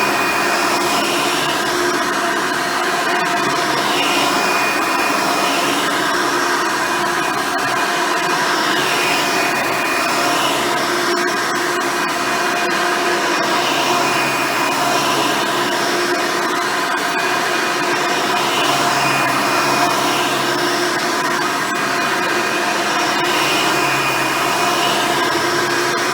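Hoover Elite upright vacuum running steadily with a motor whine, its original 7-amp motor and 7-blade fan driving a single-row brush roll. The vacuum is pushed back and forth, and the sound swells and fades in a regular rhythm with each stroke.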